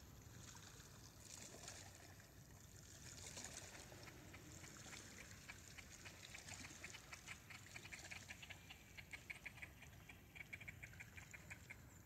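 Faint, rapid run of short clucking calls from a swimming flock of Canada geese, starting about four seconds in and stopping shortly before the end, over a low wash of water.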